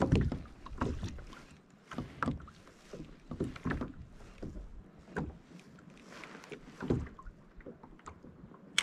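Water slapping against the plastic hull of a Hobie Compass kayak, in irregular short splashy knocks about one or two a second.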